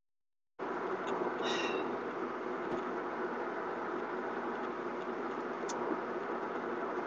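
Steady car noise heard from inside a car's cabin, cutting in abruptly about half a second in and holding level throughout.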